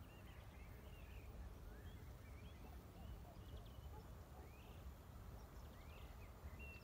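Faint birdsong: scattered short chirps and whistles over a low, steady outdoor rumble.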